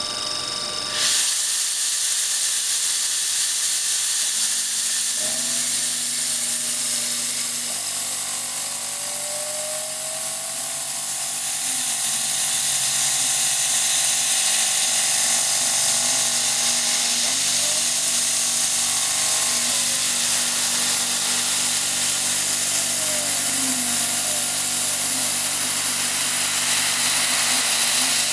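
Milling machine cutting a brass gear with a 1/8-inch carbide end mill, over a strong steady hiss of mist coolant spray that starts abruptly about a second in. From about five seconds a steady hum joins in, with whines that glide up and down in pitch as the machine's axes move the cutter along the spoke profile.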